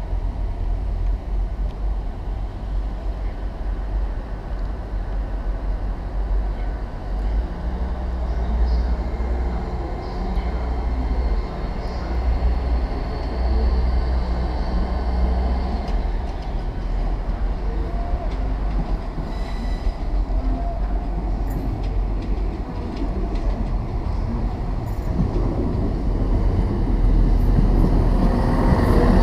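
Steady low rumble of trains standing at the station platforms. Near the end a train moves along the nearest platform close by, and the sound grows louder.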